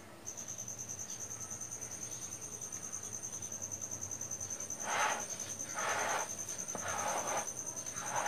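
A cricket trills steadily in the background, a fast pulsing high-pitched note. From about five seconds in come a few soft scraping strokes, roughly a second apart, as a silicone spatula spreads cream across the top of a cake.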